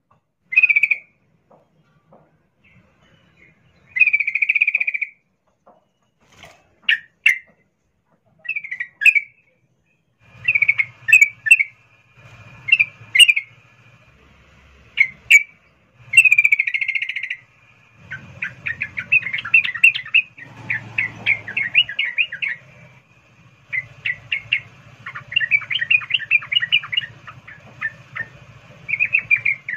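Yellow-vented bulbul calling: bright, bubbly chirps in short phrases, then from about two-thirds of the way in long rapid runs of notes, with a few sharp clicks among them. Presented as a female in breeding condition calling for a male.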